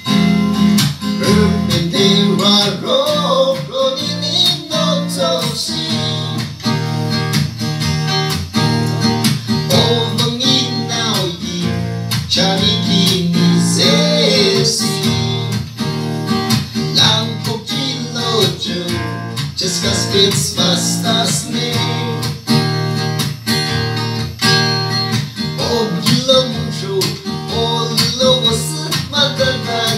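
Acoustic guitar strummed steadily, with a man singing along in stretches.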